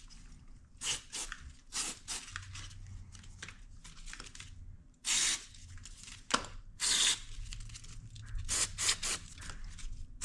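Aerosol electronics cleaner sprayed through a straw nozzle in several short hissing bursts to clear off dirt. The longest and loudest burst comes about halfway through.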